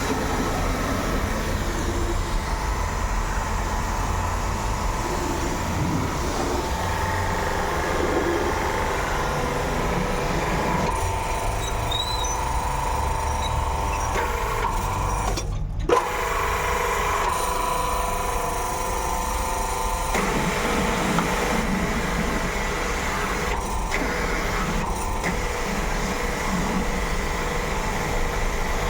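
Machinery running steadily: a constant low rumble with a steady whine over it, briefly cutting out about halfway through.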